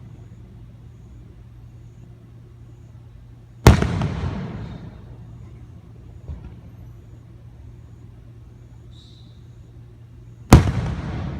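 Fireworks going off: two loud bangs about seven seconds apart, each trailing off in a rumbling echo over about a second, with a faint pop between them.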